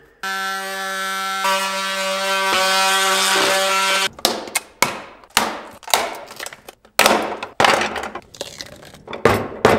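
Cordless Milwaukee power tool cutting through the plastic case of a LiFePO4 battery: a steady motor whine with a hiss of cutting for about four seconds, followed by a run of short, sharp noises about one or two a second.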